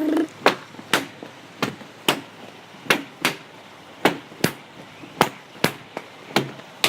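A low held tone cuts off just after the start, followed by a run of about a dozen sharp knocks, roughly two a second and falling in loose pairs, made as foley sound effects.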